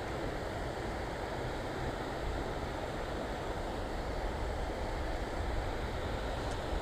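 Steady rush of a shallow river running over rocks, with a low, fluttering wind rumble on the microphone.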